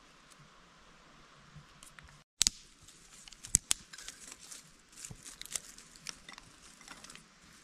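Irregular crackles and sharp clicks of something being handled, starting after a brief dropout a little over two seconds in. Before the dropout there is only faint background hiss.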